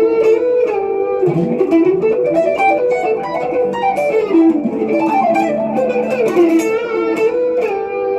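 Electric guitar, a Squier Classic Vibe Stratocaster played through a Zoom G2X Four multi-effects pedal, playing a fast single-note lead line, with a few lower notes held underneath.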